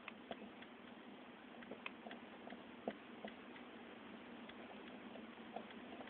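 Faint, irregular light clicks and ticks as a finger turns the hub of a CD-ROM spindle motor by hand, over a steady low hum and hiss.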